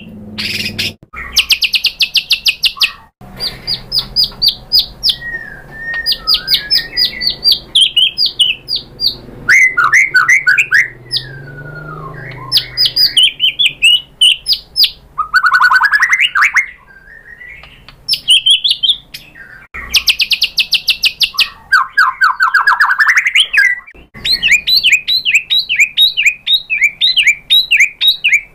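White-rumped shama singing a loud, varied song: fast runs of sharp repeated notes and trills, mixed with falling whistled sweeps, in phrases of a few seconds separated by short breaks.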